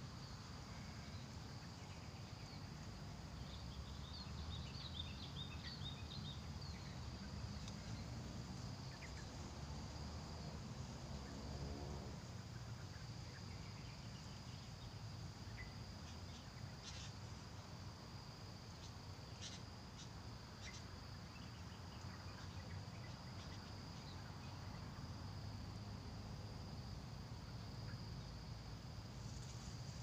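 A steady high-pitched insect drone, with a quick twittering of bird chirps a few seconds in and a few short sharp chirps later on, over a low rumble.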